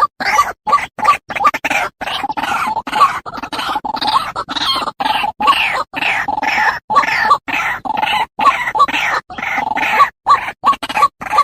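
White-breasted waterhen (ruak-ruak) calling: a fast, unbroken run of harsh croaking notes with brief gaps between them. This is a recorded lure call, played to draw waterhens in for hunting or trapping.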